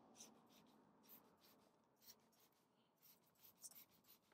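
Near silence, with a few very faint short ticks and hisses.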